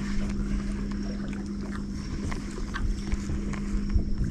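A small boat's motor running with a steady, even hum, with a few faint ticks over it.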